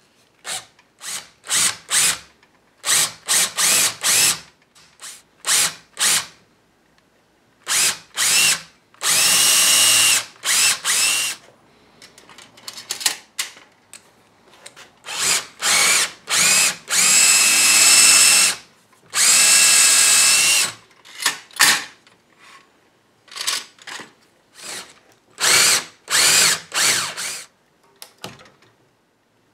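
Cordless drill run in many short trigger bursts, boring out a broken wooden stub lodged in the hole of a chair post; each burst is a whining motor that rises in pitch as it spins up, with a few longer runs of one to two seconds near the middle.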